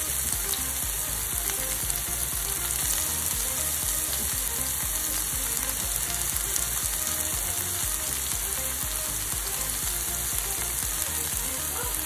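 Chopped red onion, garlic and sliced red chillies frying in hot oil in a pan: a steady sizzle.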